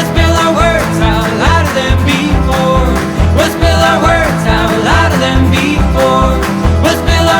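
Background pop song with a steady drum beat and guitar, playing in an instrumental stretch between sung lines.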